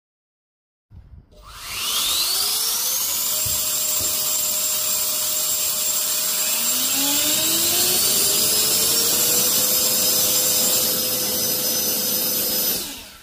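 High-speed electric ducted-fan blowers running: a loud whine rises in pitch as the first blower spins up about a second in, a second rising whine joins a few seconds later, and both run steady before shutting off one after the other near the end.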